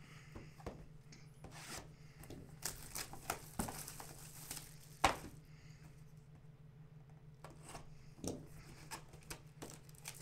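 A folding utility knife slitting and tearing open the plastic wrap on a sealed box of trading cards, with scraping, crinkling and handling noises and one sharp tick about five seconds in, over a steady low hum.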